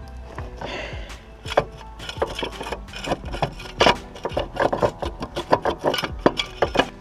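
A run of quick, irregular knocks and scraping, closer together from about two seconds in.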